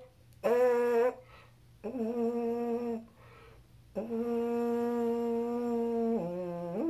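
Trombone mouthpiece buzzed on its own: two short notes and then a long held note on B flat, dropping to a lower note and gliding back up near the end. The tone is meant to be warm, with plenty of air put through the mouthpiece.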